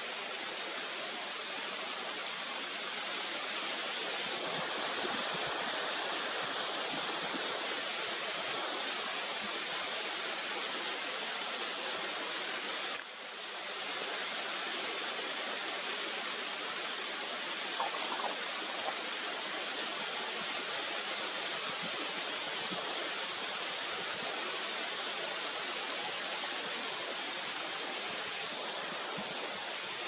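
Steady rushing noise of flowing water, with a sharp click and a brief drop in level about halfway through.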